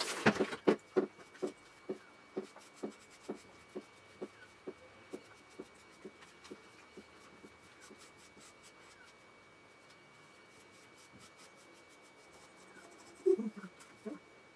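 A brief rush of water stops, then water drips into the shower tray about twice a second, fading away over several seconds. Faint rubbing in the wet coat follows, and a short louder low sound comes about a second before the end.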